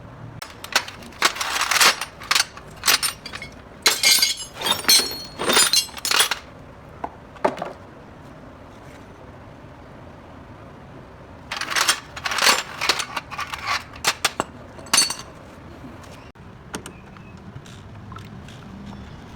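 Metal tools and parts clinking and clattering against each other during brake and steering work, in two bursts of rapid sharp knocks with short ringing and a quiet stretch between them.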